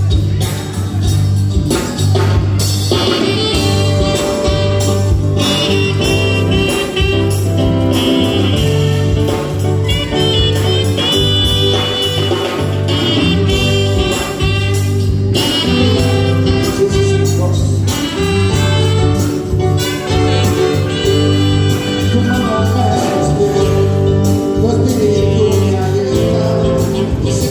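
Live band music through PA speakers: trumpets and saxophone playing over keyboard, drum kit and a steady bass line, with singing.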